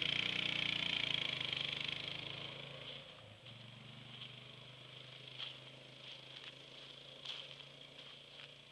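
Four-wheeler (ATV) engine running as it drives away, fading over the first three seconds to a faint, steady distant hum, with a few faint ticks later on.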